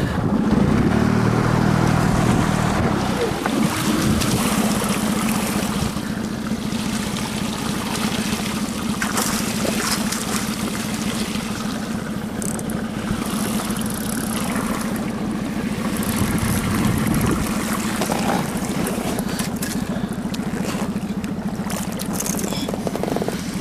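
Small boat outboard motor running steadily, with an even pulsing hum that is a little stronger in the first few seconds.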